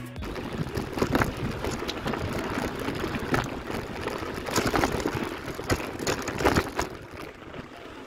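Mountain bike rolling over a rough dirt track: tyre crunch on dirt and gravel with frequent short rattles and knocks from the bumps, easing a little near the end.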